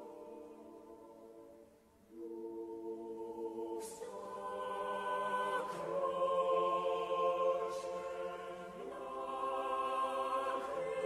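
Slow intro music of sustained choir-like chords, the chord changing every two to three seconds; it dips quiet about two seconds in, then swells louder.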